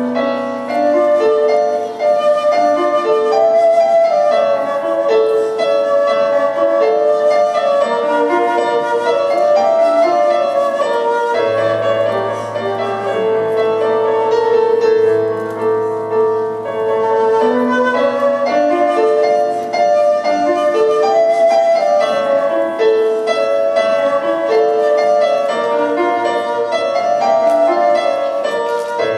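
Concert flute playing a classical-style melody of held notes over keyboard accompaniment with a sustained bass line.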